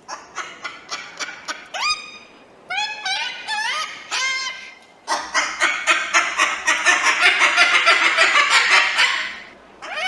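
Crested cockatoo calling: a run of short squawks that slide upward in pitch, then from about five seconds in a dense, rapid chatter that stops shortly before the end.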